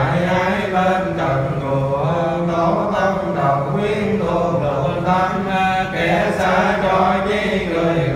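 Buddhist monk chanting into a microphone: a slow, melodic chant on long held notes that steps between a few pitches, without a pause.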